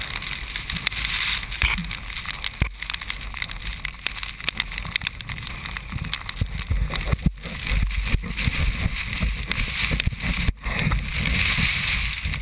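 Storm-force wind buffeting an action camera's microphone: a gusty low rumble with a steady hiss of wind-blown sand, rising and falling in strength, with a few momentary drop-outs.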